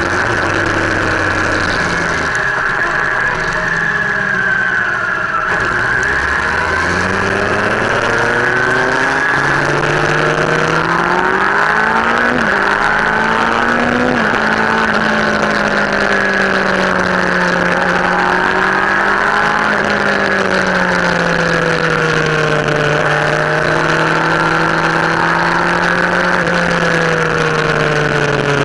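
Motorcycle engine heard from the rider's onboard camera. It eases off about two seconds in, then accelerates with rising pitch from about six seconds, changing up twice around twelve and fourteen seconds. After that it cruises steadily, the pitch slowly easing, under a steady rush of wind.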